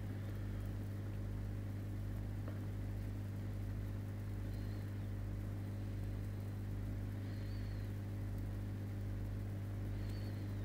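Steady low electric hum of an aquarium pump running, with a few faint short high-pitched chirps over it.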